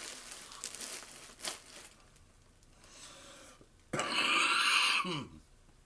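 Plastic packing material crinkling and rustling as a camera lens is unwrapped, with a few sharp clicks in the first two seconds. About four seconds in comes a louder burst of rustling, or tearing, that lasts just over a second.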